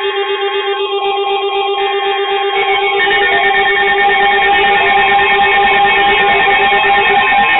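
Guitar music over two buzzing data bursts, each about a second long and a second apart, in the first three seconds: the SAME digital header of an NOAA Weather Radio alert being transmitted.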